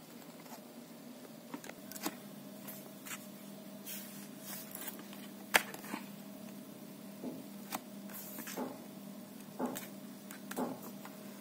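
Scattered light clicks and taps of a metal laptop display hinge being handled and fitted against the display panel, with one sharp click about five and a half seconds in. A faint steady hum runs underneath.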